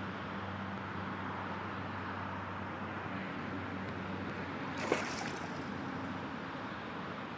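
Steady outdoor wind and water noise by the lake, with one brief sharp sound about five seconds in.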